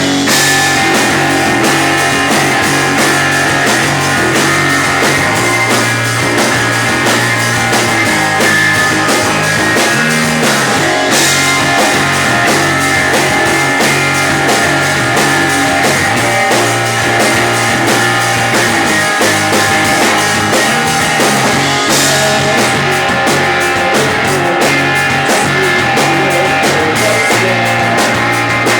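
Loud rock music with guitar and drums playing at a steady beat.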